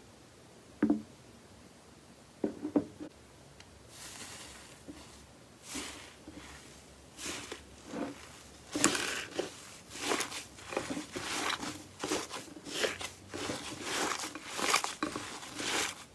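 Slime being squeezed and pressed by hand, making sticky pops and crackly squelches: a few isolated pops at first, then a dense run of them from about six seconds in.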